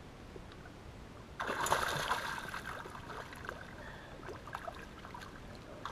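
Hooked northern pike thrashing in shallow water as it is reached for by hand: a sudden splash about a second and a half in, fading into sloshing and dripping water.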